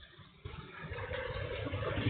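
A low motor-like hum that starts about half a second in and grows steadily louder.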